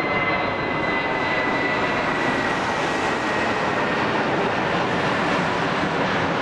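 Airbus A320-family twin-engine jet airliner climbing out overhead after take-off: a steady, loud jet engine roar with a faint high whine that drifts slightly lower in pitch over the first few seconds.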